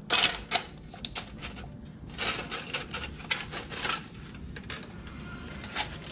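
Irregular crinkling and clicking from hands and tools working around the oil filter area of a motorcycle. There is a cluster of sharp crackles at the start and another about two seconds in.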